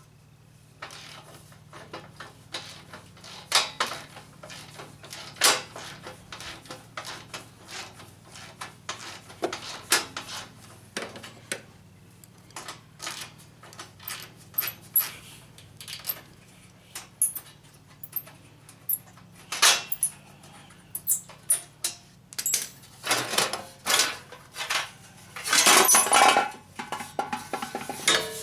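Metal parts and hand tools clinking and clattering as they are handled: many short, irregular knocks and clicks, with a longer scraping rattle near the end.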